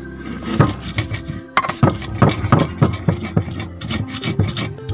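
Stone pestle crushing and grinding shallots and garlic on a flat stone mortar (Indonesian ulekan and cobek), in quick scraping, knocking strokes at about three a second, with a short pause about one and a half seconds in.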